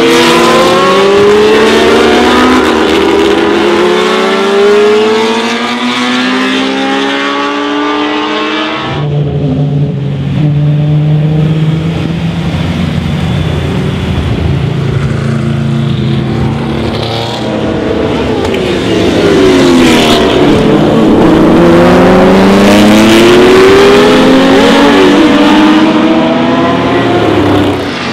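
Historic race car engines at full throttle in several short clips: first a car accelerating hard, its pitch rising again and again through upshifts; then a lower, steadier engine note; then another car approaching and passing, its pitch rising and falling.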